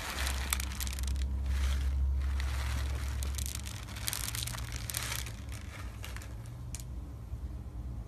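Crunchy slime being squeezed and worked by hand, giving dense crackling and popping that is busiest over the first five seconds and then thins out.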